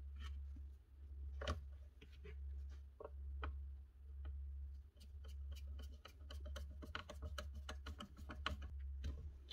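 Faint clicks and taps of hands handling parts of a power tool under repair, coming more often in the second half, over a low hum that swells and fades about once a second.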